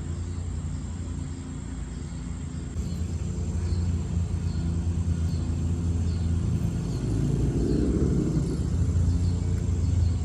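Steady low engine rumble of a vehicle running, growing louder partway through, with faint regular high ticks about twice a second.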